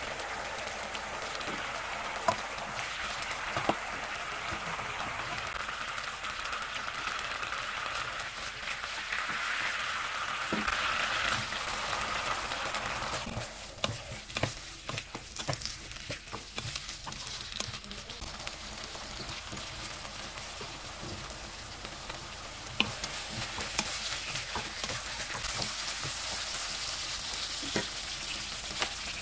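Food frying and sizzling in oil in a nonstick wok. First it is chicken liver and gizzard pieces, then sliced onions. From about halfway through, a wooden spatula stirs the onions, scraping and tapping against the pan.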